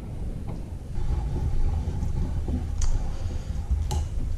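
An alloy control arm being handled in a steel bench vise: a few sharp metallic clicks, about three and about four seconds in, over a steady low rumble.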